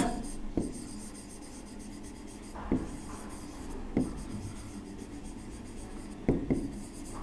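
A pen writing on a board: a faint scratching rub as words are written, broken by four light taps.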